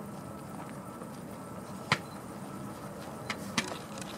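Distant jet engine noise from the landing Airbus Beluga XL's Rolls-Royce Trent 700 engines, a steady rush, with a sharp click about two seconds in and two more near the end.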